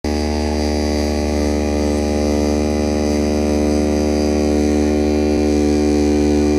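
CNC oscillating knife running, its blade vibrating up and down as it cuts through a graphite sheet, giving a steady buzz.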